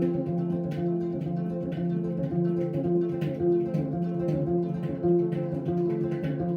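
Music from a tonkori, the Ainu plucked string zither, playing a repeating pattern of plucked notes over steady sustained tones.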